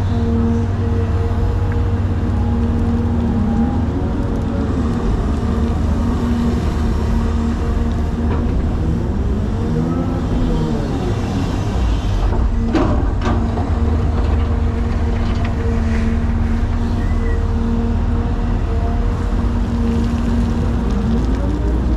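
Caterpillar 336 excavator running steadily under work, its diesel engine rumbling with a hum that rises and falls in pitch three times as the hydraulics take load. A single sharp clank comes a little past halfway.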